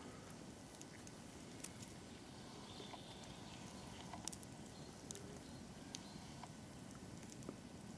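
Faint footsteps through dry leaf litter on a woodland floor: a low steady rustle with scattered, irregular sharp crackles of twigs and leaves underfoot.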